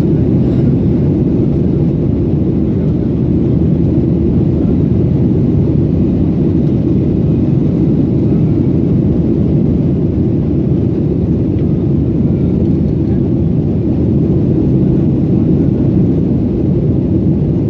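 Airliner during take-off, its jet engines and rushing air making a steady low rumble that holds level throughout.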